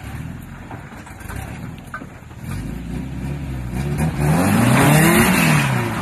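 Suzuki Samurai's four-cylinder engine revving up hard under load as it climbs a rock ledge, rising in pitch to a peak about five seconds in and then dropping away. A loud rushing noise from the tyres and splashing water comes with the peak of the revs.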